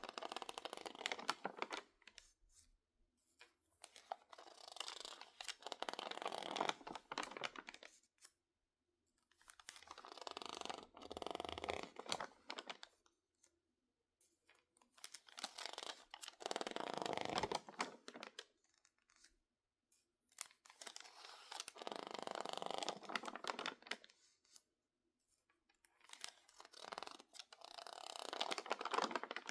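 Dry, water-damaged magazine pages being crinkled and squeezed by hand: six bouts of crackling, each two to three seconds long, with short silent pauses between them.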